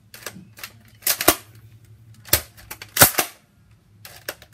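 Toy foam-dart blaster (Nerf gun) shots: several sharp snaps over about two seconds, the loudest about three seconds in, with smaller clicks between.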